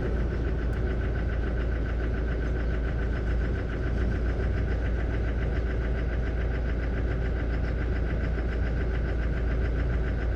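Toyota Hilux diesel engine idling with a rapid, even ticking knock from the freshly replaced injector. The mechanic puts the noise down to a foreign particle in the new injector and expects the programming routine to smooth it out.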